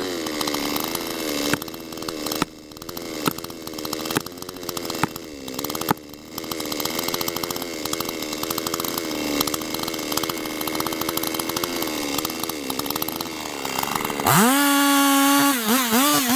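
Gasoline chainsaw idling steadily, with a few sharp knocks in the first seconds. About two seconds before the end it revs up loudly and cuts into the tree trunk, its pitch wavering under load.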